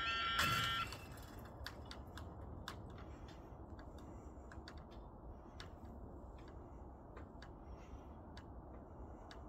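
Level crossing yodalarms sounding, one with a strange, faulty tone, cut off abruptly under a second in as the barriers come fully down, with a dull thump just before. After that, faint irregular clicks over a low rumble.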